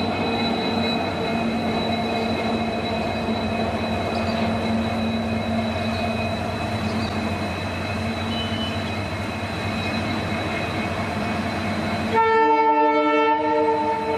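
Indian Railways locomotive running past with a steady rumble, then sounding its horn once for about two seconds near the end.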